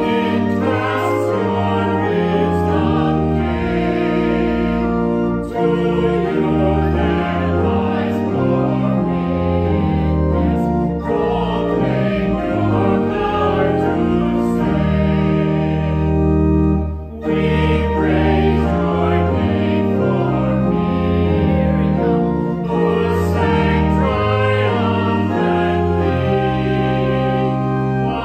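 Choir singing a hymn with organ accompaniment, with a brief break between phrases past the middle.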